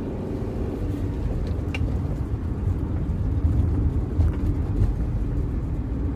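A car driving along, with a steady low engine and road rumble.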